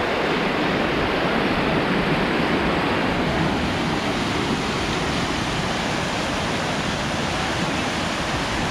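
River water rushing steadily over a shallow rock ledge as small whitewater rapids.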